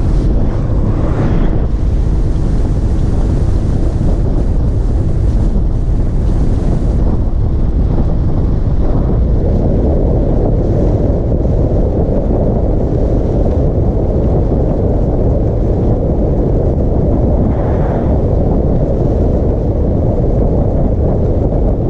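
Heavy wind buffeting on the microphone at road speed, a loud, steady rumble of wind and road noise from a ride along an open highway.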